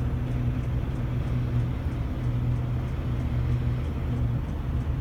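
Steady low droning hum with no change in pitch, over a faint even background noise.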